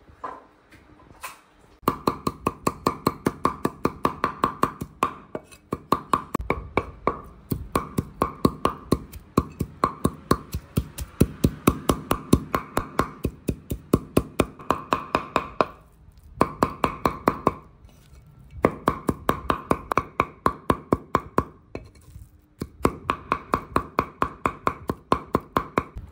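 Cleaver chopping small fish and red chilies on a wooden chopping board: rapid, even strokes at about four to five a second, each a sharp knock with a slight ring, stopping briefly a few times.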